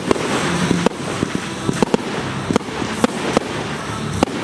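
Fireworks display: a continuous dense crackle with sharp bangs going off irregularly, roughly every half second.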